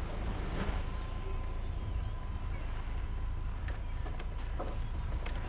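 2WD Ford Ranger pickup driving slowly over a rough, rocky dirt trail: a steady low rumble of engine and tyres, with scattered sharp knocks and clicks as rocks and the body jolt, and a faint steady whine.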